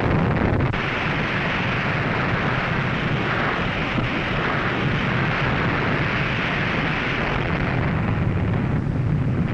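Explosion sound effect: a loud, steady rumble of noise, deep and full, that holds level throughout without single blasts or changes.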